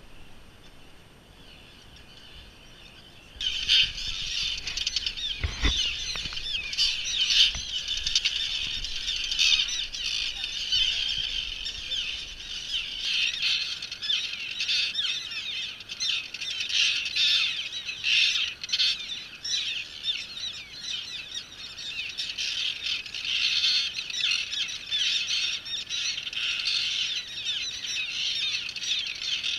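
Common tern colony calling: many terns at once overhead, a dense, unbroken chorus of harsh high calls that starts abruptly about three seconds in.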